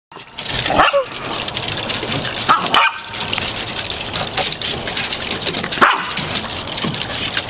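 Small dogs barking: a few short barks spread over several seconds, over a steady hiss.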